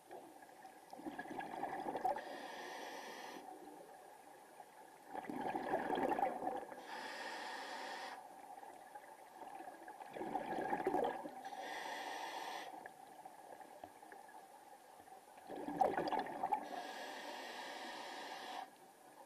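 Scuba diver breathing through a regulator underwater: four breaths, each a rough bubbling exhalation followed by a hissing inhalation, about every five seconds.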